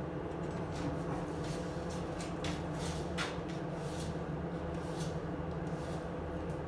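A 2000x50 belt grinder running steadily with a constant hum, with a few short clicks and rattles over it.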